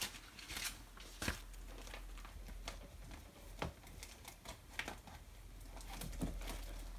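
Faint crinkling of plastic packets, with scattered light clicks and knocks: craft supplies being rummaged through.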